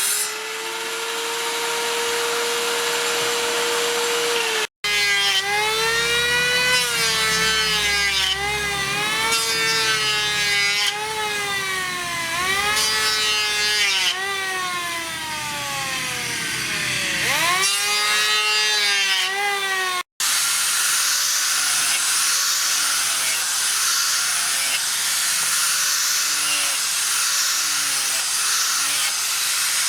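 An electric power tool's motor whines as it works steel, with cuts in between. At first the whine is steady. Then its pitch repeatedly sags and recovers as it is pressed into the work and eased off. Near the end it turns to a rough hiss of abrasive grinding.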